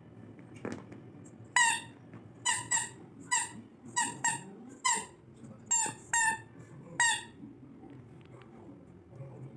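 Rubber squeaky dog toy squeaking about ten times in irregular quick squeezes as a Labrador puppy chews and plays with it.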